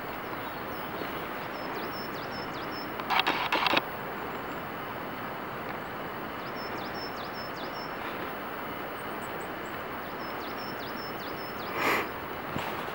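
Steady outdoor background rush with a small songbird singing short phrases of quick, high notes, repeated several times. A brief loud scraping rustle comes about three seconds in, and a shorter one just before the end.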